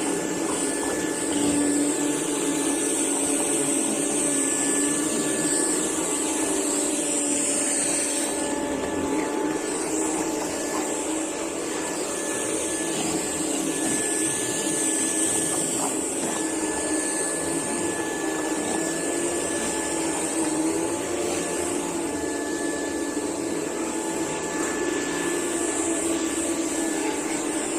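Vacuum cleaner running steadily: a constant motor hum with a high whine over it.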